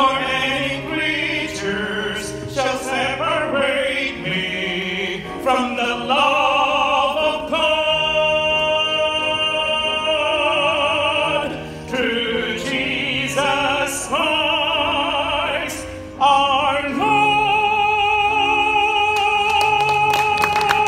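A man singing solo in an operatic style into a handheld microphone, with vibrato on the held notes. He ends on a long sustained high note over the last few seconds.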